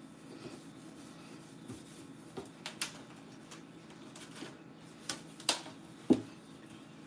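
Scattered light clicks and knocks of items and plastic parts being handled while a refrigerator is cleaned out, the sharpest knock about six seconds in, over a faint steady hum.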